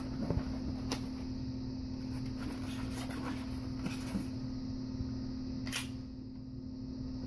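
Handling noise of a metal airsoft pistol and its packaging: scattered light clicks and rustles, with one sharper click about six seconds in.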